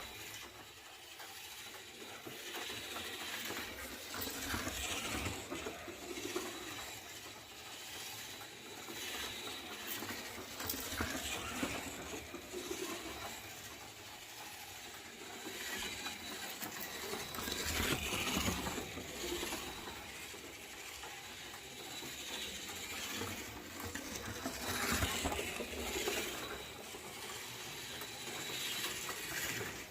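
Vintage 1/24-scale AMT Munster Koach slot car running on its track: its small electric motor and gears whirring with a rattling, clicking chatter, swelling and fading every six or seven seconds as it laps.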